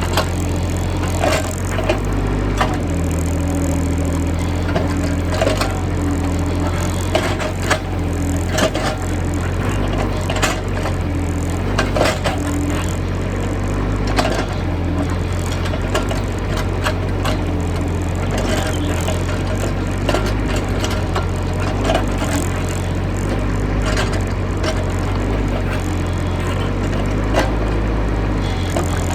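Excavator diesel engine running steadily under load, with scattered cracks and knocks as the bucket breaks into and digs out a termite mound.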